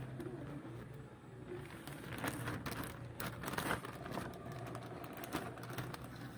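Plastic packaging rustling and crinkling in irregular crackles as a parcel is torn open and handled by hand.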